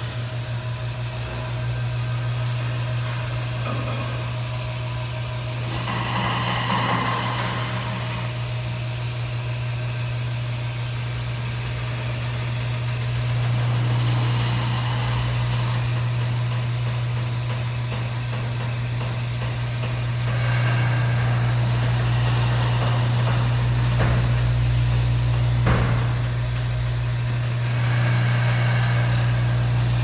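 Bifold hangar door opening on its lift cables, its drive motor humming steadily with a low tone. A metal squeal comes about six to eight seconds in, and there are a few short knocks in the second half as the door swings up.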